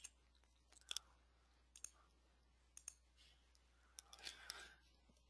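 Near silence with a handful of faint, scattered clicks, about one a second.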